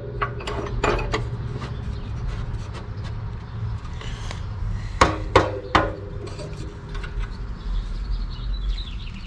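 A 2.5-inch metal pipe is being handled in a chop saw's vise. There are light clicks early, then three sharp knocks about five seconds in, each leaving the pipe ringing briefly, over a low steady hum.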